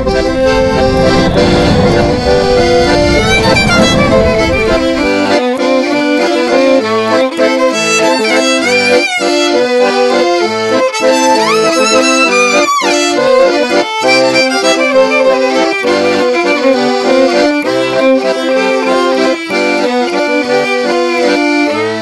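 Instrumental passage of a children's song: a melody of held and moving notes over chords. A low layer drops out about five seconds in, and a few quick sliding notes come around twelve seconds in.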